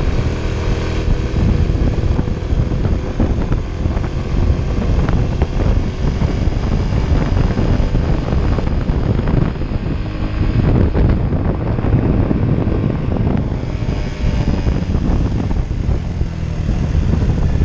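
Honda Innova's 125 cc single-cylinder four-stroke engine running steadily under load on a steep uphill climb, with wind rumbling over the microphone.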